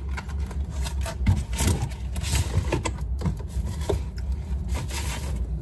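Scraping and rustling handling noise in two stretches, over a steady low hum.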